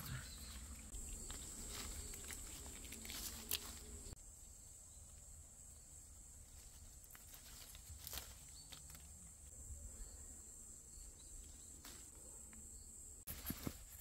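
Quiet outdoor ambience of an autumn forest: a steady high drone of insects, with scattered light clicks and rustles of movement on the ground.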